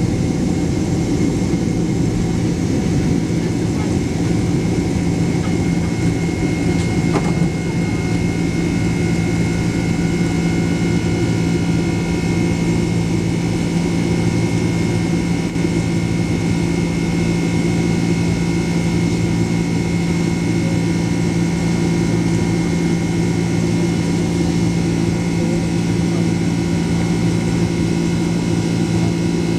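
A jet airliner's engines running steadily during takeoff, heard from inside the cabin. The sound is an even rush of noise with a low hum and a steady high whine, plus a single brief click about 7 seconds in.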